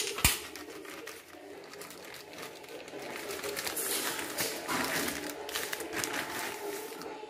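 Plastic wrapping crinkling as a pair of telescopic steel drawer slides is handled, busiest in the second half. A single sharp knock comes just after the start.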